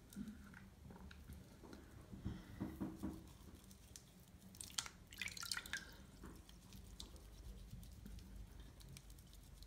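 Soft, wet squishing of a bar of soap rubbed up and down on a wet bare foot, with water dripping into the sink, a little louder about five seconds in.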